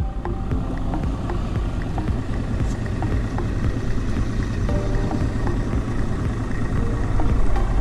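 Mercury outboard motor running at low speed, a steady engine drone.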